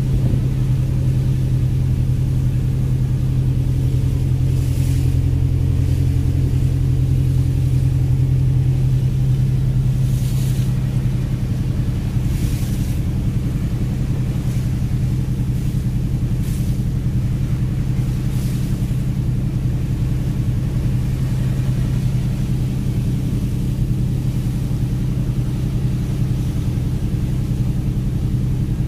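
A fishing vessel's diesel engine running steadily underway, a constant deep drone with a strong low hum. Short swells of hiss come and go every few seconds over it.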